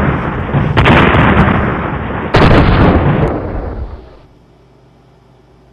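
Explosion sound effects: a run of loud sudden blasts, with fresh ones about a second and two and a half seconds in, each dying away, the whole fading out about four seconds in.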